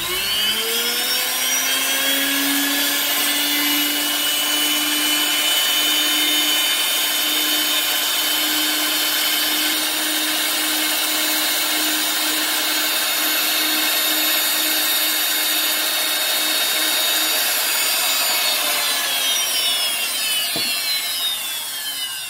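Rotary tool spinning a felt bob loaded with polishing compound against a pistol barrel's feed ramp: a steady high motor whine with the rubbing of the felt on the steel. Near the end the whine falls in pitch and fades as the tool winds down.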